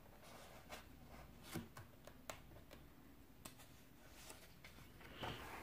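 Near silence with a few faint clicks and a soft rustle of a hardback picture book's paper pages being handled.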